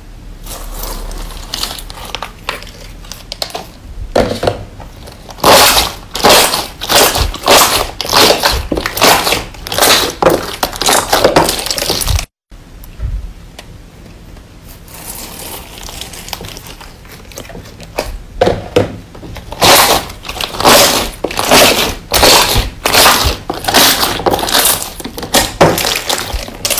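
Clear green slime pressed through a wire cooling rack and squeezed by hand, giving runs of sharp crackling pops, one or two a second. The popping breaks off abruptly partway through and starts again a few seconds later.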